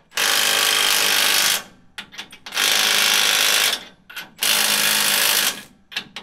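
Cordless impact wrench hammering bolts on a pickup's rear leaf spring mount: three bursts of about a second and a half each, with brief blips between them, and a fourth burst starting at the very end.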